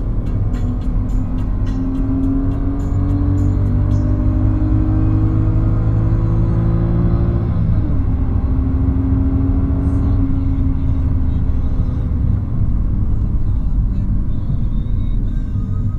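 BMW 330i's straight-six engine heard from inside the cabin while accelerating on track. Its pitch climbs steadily, drops sharply at an upshift about seven and a half seconds in, then climbs again through the next gear.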